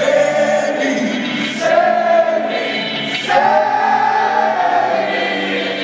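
Rock band playing live, with a male lead singer holding long, drawn-out notes over the band.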